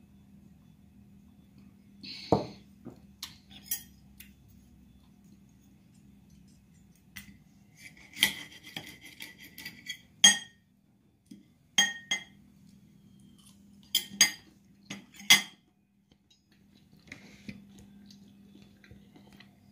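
Steel knife and fork clinking and scraping against a ceramic plate while a sausage is cut up, a series of sharp clinks with brief ringing in bunches. A faint steady low hum runs underneath.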